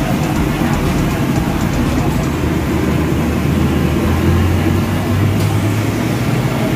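Steady low engine and traffic rumble, with a hum that grows stronger about four seconds in, under faint background voices.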